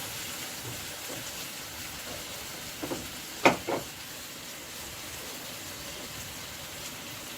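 Chicken frying in a pan, a steady sizzle, with three short sharp knocks a little over halfway through.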